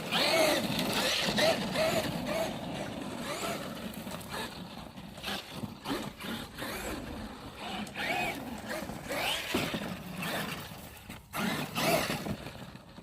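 Traxxas Maxx electric RC monster truck running off-road, its motor whining up and down in pitch as the throttle is worked, with scattered short knocks as the truck goes over the ground.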